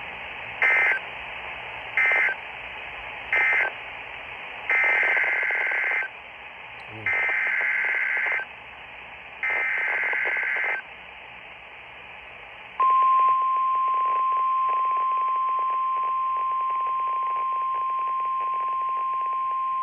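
NOAA Weather Radio emergency alert signals. First come three short screeching data bursts, the SAME end-of-message code, then three longer data bursts, the SAME header for a new alert. About two-thirds of the way through, the steady 1050 Hz weather radio warning alarm tone starts and holds; it marks a warning about to be read, here a tornado warning.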